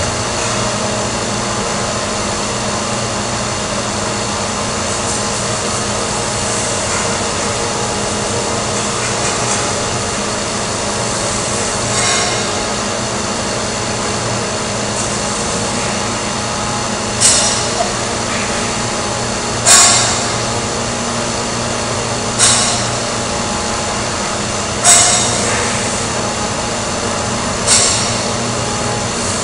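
Steady hum of sheet-metal workshop machinery, with a series of sharp metallic bangs with a short ring, about every two and a half seconds in the second half.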